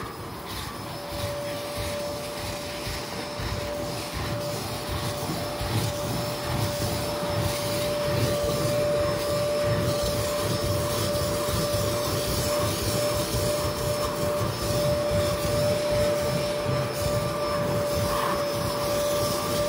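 Kärcher carpet-cleaning vacuum running steadily with a high whine, working over carpet.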